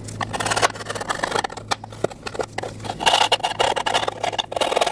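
Thin metal scraping tool scraping built-up corrosion off the inside of a valve cover around a bolt boss and the gasket groove, in short, irregular scrapes.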